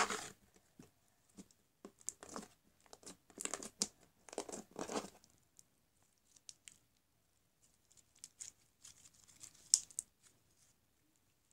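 Glossy blue slime being squished and poked by hand, giving quiet crackles and small air-bubble pops. They come thick for the first few seconds, then sparser, with one sharper pop near the end.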